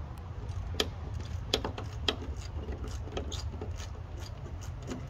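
Irregular metallic clicks and scrapes of a hand-held crescent wrench working a rusted nut on a bus's body trim, over a steady low rumble.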